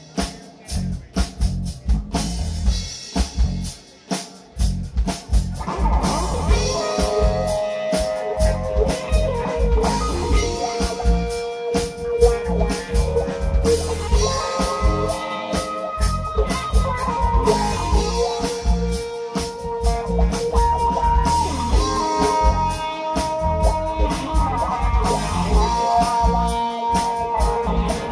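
Live psychedelic rock band playing instrumental music. Drum kit and bass open alone, then electric guitar lines come in about five and a half seconds in and the full band plays on.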